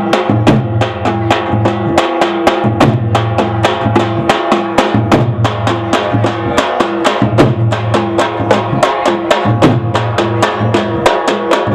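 A group of large stick-beaten drums, bass drums and side drums, playing together in a fast, steady, driving beat. There are roughly five to six strokes a second, and the drumheads ring low under the sharp stick hits.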